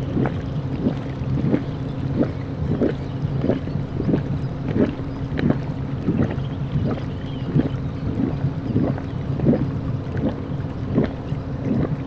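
Geothermal hot spring in Iceland's Geysir field boiling, with a gurgle or splash repeating about one and a half times a second over a steady low rumble.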